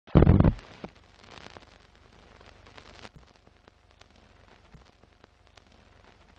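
Old-film crackle sound effect for a countdown-leader intro: a loud burst right at the start, then a faint hiss with scattered crackles and pops.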